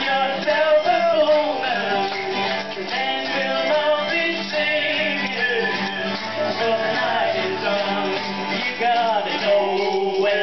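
Acoustic folk band playing an instrumental break: strummed acoustic guitars and mandolin with a harmonica line and the jingle of a lagerphone keeping the beat.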